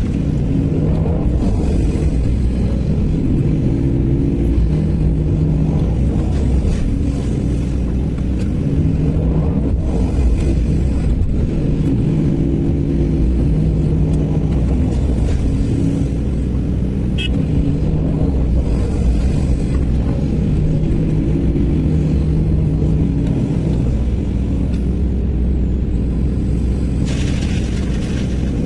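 Sany SY215C hydraulic excavator's diesel engine running steadily under load, its note rising and falling every few seconds as the hydraulics work through the dig-and-swing cycle.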